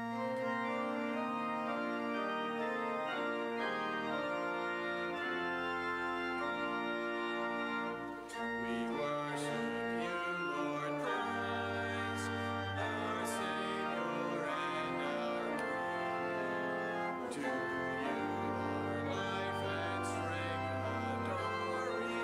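Church organ playing a hymn in held chords, with deep pedal bass notes coming in about halfway through.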